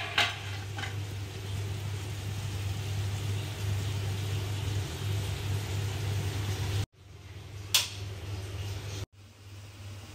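A metal lid clinks as it is lifted off a wok. Then chicken and bitter gourd curry sizzles in the wok over a gas flame, with a steady low hum underneath. A second sharp clink of metal comes later.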